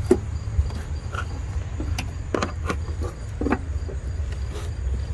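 Light clicks and knocks from hands pushing a replacement 4WD IWE vacuum solenoid into its mount, about eight irregular clicks over a steady low rumble.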